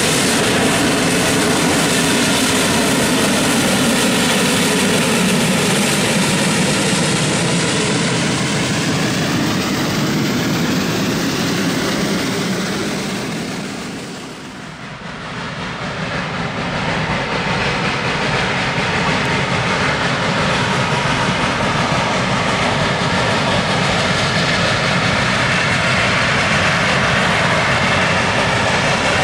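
Heisler No. 6, a geared steam locomotive, working a train of open excursion cars, its exhaust and running gear a loud, dense, steady rumble. The sound dips briefly about halfway through, then comes back just as loud.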